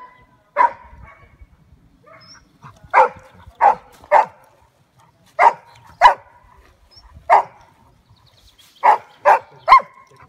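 A dog barking: about ten loud single barks, spaced unevenly, some coming in quick pairs or threes with pauses of a second or more between groups.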